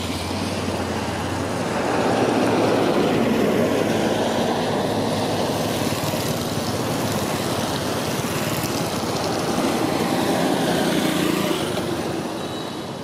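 Motor vehicles passing on a wet road: a steady hiss of tyres and engine noise that swells about two seconds in, eases, swells again later and fades near the end.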